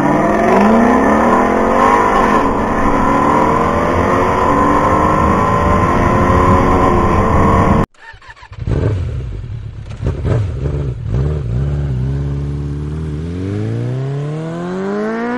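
Vehicle engines revving and accelerating in traffic, cut off abruptly about eight seconds in. After the cut come a few short knocks and whooshes, then one engine revs up in a long rising sweep near the end.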